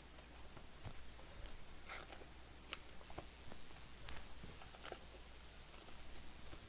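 Trading cards being handled and slid into soft plastic sleeves: faint scattered clicks with a few short plastic swishes.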